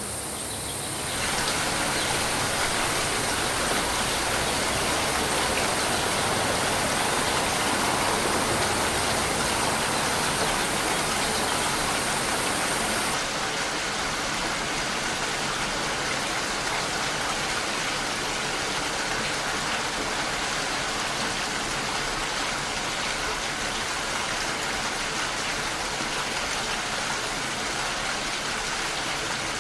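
Steady heavy rain, a dense even hiss without distinct drops. It grows louder about a second in, and the highest part of the hiss falls away a little before halfway.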